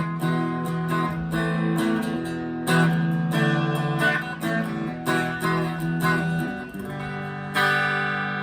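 Chapman ML3 Standard P90 electric guitar played clean through a Vox AV15 amp on its neck P90 pickup. It plays a run of struck chords, and the last one, near the end, is left to ring.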